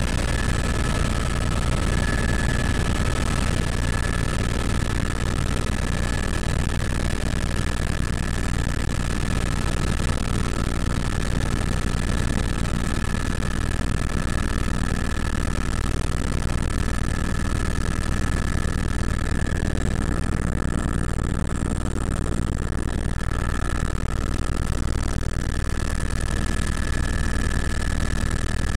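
Helicopter in flight heard from inside the cabin: a steady deep rumble of rotor and engine with a steady high whine on top.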